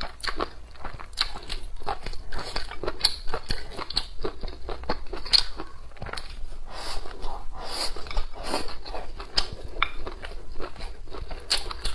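Close-miked chewing and biting of stir-fried dried green beans with cured pork: an irregular run of short mouth clicks and crunches, several a second.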